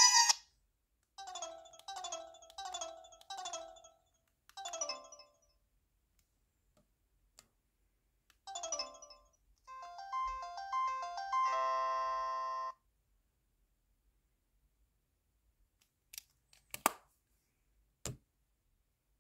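Samsung SPH-A420 cell phone playing short electronic ringtones or alert tones through its small speaker: a string of short repeated chimes, then a quick run of notes ending in a held chord. A few sharp clicks come near the end.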